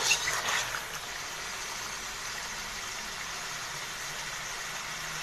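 Chicken pieces frying in hot ghee in an iron karahi: a steady sizzle, with a spoon stirring them briefly in the first second.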